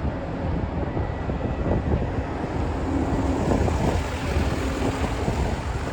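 Steady low rumble of a Boeing 767-300 freighter's jet engines, with wind buffeting the microphone.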